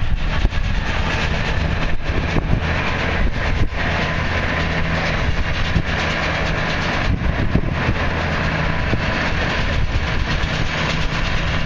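Tractor-driven round baler running, a steady engine drone under a continuous rattling, clicking clatter of the machinery.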